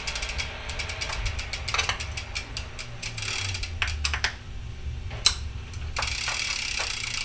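Ratcheting hand tool clicking in quick runs as the chainguide's ISD mounting bolts are given their final tightening, with a few louder knocks in between.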